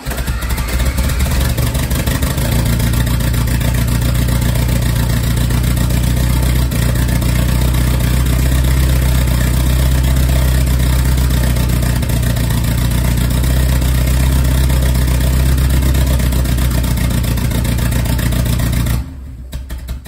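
Lotus Esprit's engine making a loud, steady engine sound that starts abruptly, with a brief rising whine at the start, and cuts off suddenly near the end.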